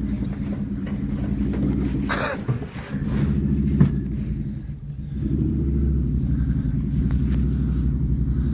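An engine running steadily with a low rumble, easing off briefly twice, about two and a half and five seconds in. A short rustle about two seconds in and a single knock near the middle sound over it.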